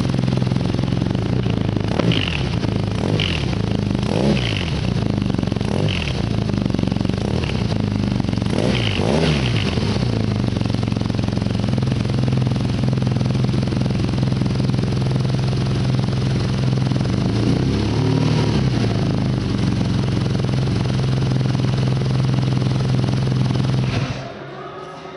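A stock BMW R nine T's 1170 cc air/oil-cooled boxer twin idling steadily through its standard exhaust, with a deep, even hum.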